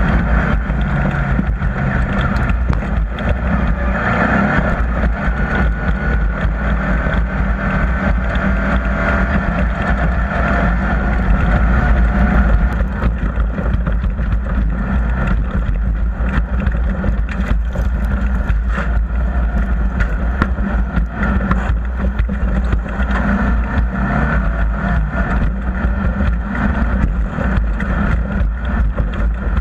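Off-road race vehicle engine running steadily and loudly, without a break.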